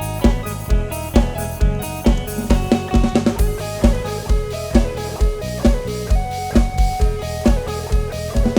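Instrumental break from a live Isan band playing through a sound-truck PA: a drum kit keeps a steady beat with a heavy kick drum about twice a second under a plucked-string guitar line, with no singing.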